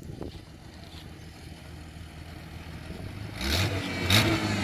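Jeep Wrangler TJ engine running low, then revving up about three and a half seconds in, its pitch rising as it accelerates. Two short rushing bursts come with the rev.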